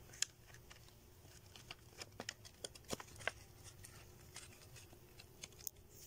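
Faint, irregular crinkling and clicking of stiff plastic from a cut 2-litre soda bottle, handled and wrapped around a collar of mattress foam on a sapling's stem.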